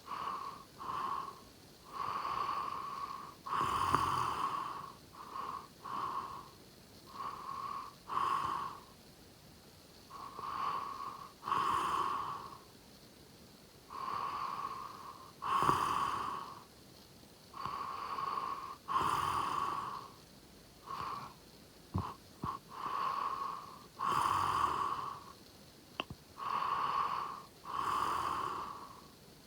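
A sleeping person snoring in a steady rhythm, about one breath every four seconds, each a shorter sound followed by a longer, louder one. Two brief clicks come in the second half.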